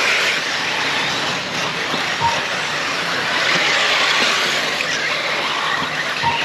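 A field of electric brushless RC off-road cars racing, heard as a steady high whirring haze of motors and tyres with no single car standing out.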